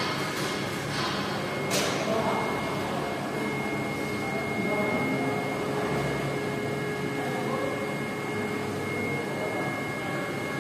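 Steady workshop machine noise with a thin high whine, and a single click about two seconds in.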